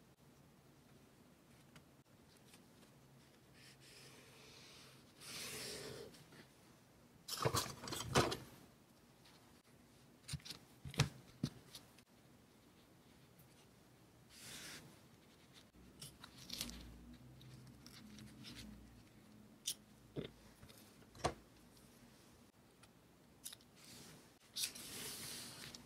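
Paper-crafting sounds from a kraft-paper journal being decorated: scattered light taps and clicks, with short rustles and swishes of paper and stickers being handled and pressed onto the page.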